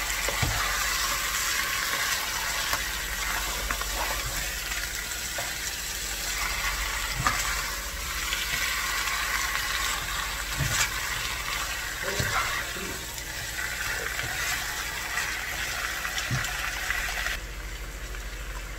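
Chicken pieces sizzling in fried yellow spice paste in a nonstick pot as they are stirred and turned with a spatula, with a few knocks of the spatula against the pot. The hiss drops away near the end.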